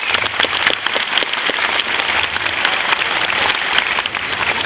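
Audience applauding: many hands clapping at once in a dense, irregular patter.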